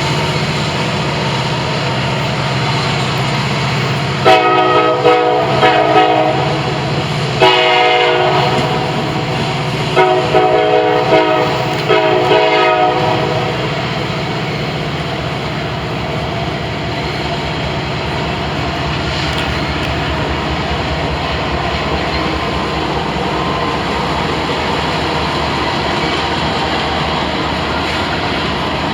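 Diesel freight locomotive air horn sounding a string of short toots and longer blasts, between about four and thirteen seconds in, in the playful pattern of a horn show. Underneath, the steady drone of the locomotive diesel engines runs on.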